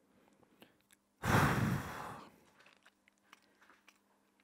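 A man's sigh breathed out close into a microphone, starting about a second in and fading out over about a second, with a few faint mouth clicks around it.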